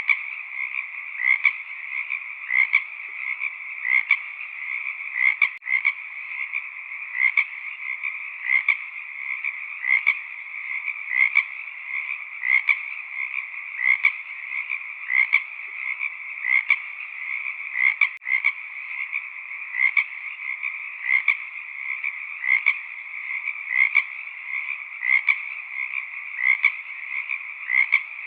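Frog chorus: a steady, dense trilling with one louder call repeating at an even pace, about every second and a half.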